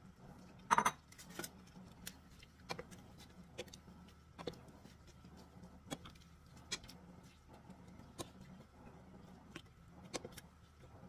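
A spoon clinking and scraping against a frying pan while mixing noodles and bean sprouts: about a dozen sharp, irregular clicks, with a louder clatter about a second in, over a faint low hum.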